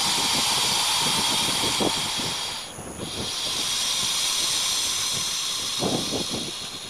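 Anaconda breathing in long hissing breaths: one breath ends about two and a half seconds in, and the next follows at once and fades near the end.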